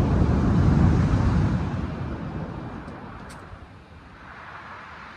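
Wind buffeting the microphone: a gust that comes on suddenly, peaks about a second in and dies away over the next few seconds, with a softer wash of surf rising near the end.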